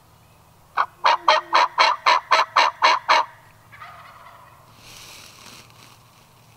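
Wild turkey hen yelping: a run of about ten loud, evenly spaced yelps at roughly four a second, followed by fainter, softer sounds.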